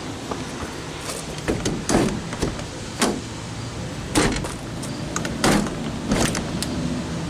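A series of irregular knocks and clunks, about seven, as trim is handled and set against the cargo trailer's door frame, over a steady low hum.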